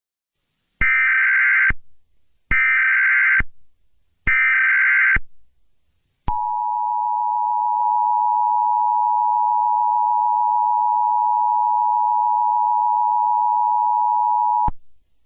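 Emergency Alert System tones. Three short SAME header data bursts come about a second apart, followed by the two-tone EAS attention signal, a steady dual tone held for about eight seconds that then cuts off.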